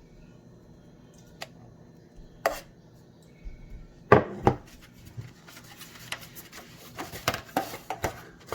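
A kitchen utensil knocking and scraping against cookware as cheese sauce is spooned into a baking pan. A few separate knocks come first, the loudest a pair about four seconds in, then a quick run of clicks and scrapes near the end.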